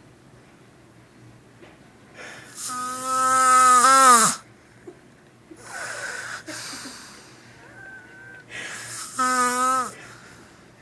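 A man snoring loudly in his sleep. There is a long pitched snore whose pitch rises sharply at its end, then a breathy exhale, then a second, shorter pitched snore near the end.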